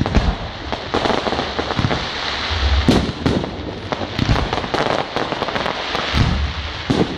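Fireworks going off: a dense, continuous crackle of gold stars and comets, broken by many sharp bangs and a few deeper thumps.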